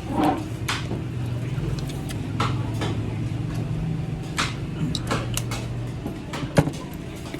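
Spoons and forks clicking against plates during a meal, a few sharp clinks, the loudest near the end. Under them runs a steady low engine hum.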